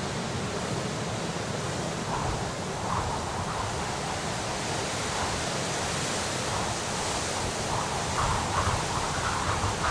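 Steady rushing of strong wind, with a few faint scuffs near the end.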